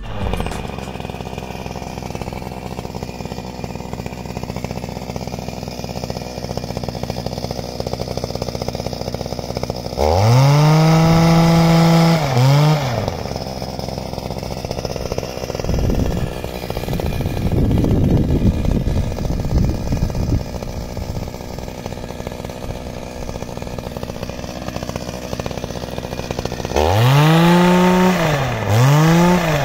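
Small two-stroke engine running steadily and revved hard twice. Each time it climbs to a high whine, holds about two seconds, falls back and gives a quick second rev: once about ten seconds in and again near the end.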